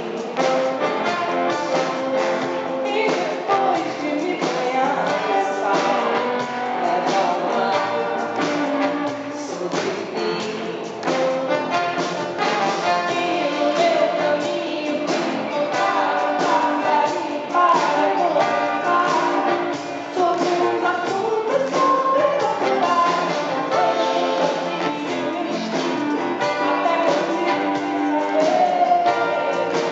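A woman singing a song in Portuguese with a live band, recorded from the audience.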